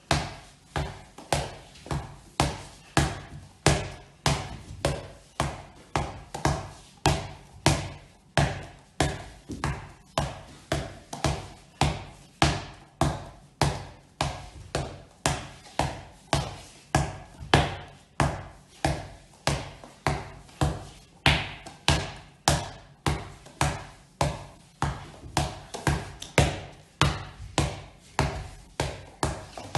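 A handball dribbled steadily on a wooden floor, about two bounces a second, each a sharp slap with a short ring.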